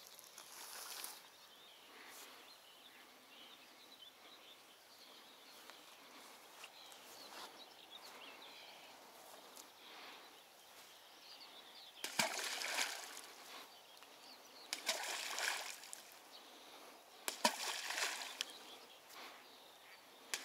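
Balls of fishing groundbait thrown by hand into still water. Four splashes come a few seconds apart in the second half, each a brief noisy wash. Before them there is only a faint outdoor background.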